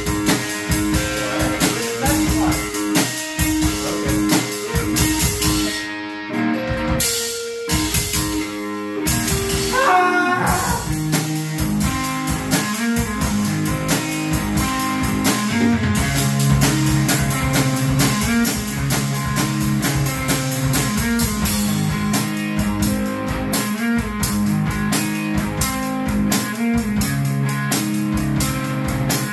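Electric guitar through an amp and an acoustic drum kit playing a rock song together live. The drums thin out for a few seconds about six seconds in, and from about eleven seconds the guitar moves down to lower notes.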